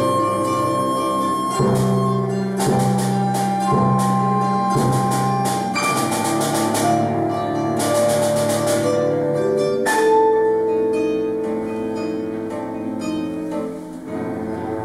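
Live contemporary ensemble music for acoustic instruments and electronic sounds: held tones layered under a run of sharp struck notes for about the first ten seconds, then only sustained held notes.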